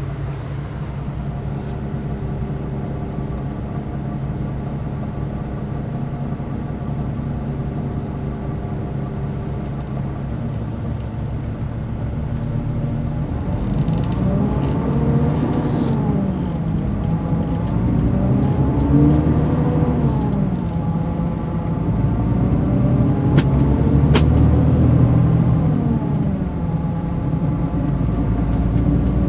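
Mercedes-Benz O500 RSD coach's six-cylinder diesel engine running at a steady pitch, then revving up and back down several times in the second half, growing louder.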